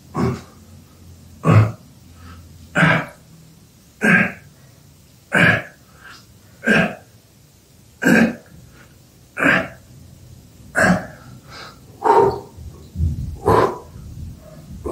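A man's sharp, forceful exhalations, one with each repetition of a prone bar press, coming evenly about every 1.3 seconds, eleven in all.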